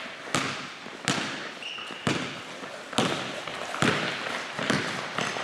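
A basketball being dribbled on a gym floor, about six bounces roughly a second apart, each echoing briefly in the hall.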